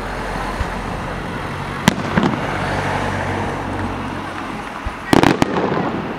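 Aerial firework shells bursting: a sharp bang about two seconds in, another just after it, and a cluster of loud bangs about five seconds in, with steady background noise between them.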